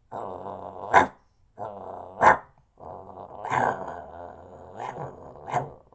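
A man's vocal impression of a bulldog: three stretches of growling, each broken by short, loud bark-like snaps, about five in all.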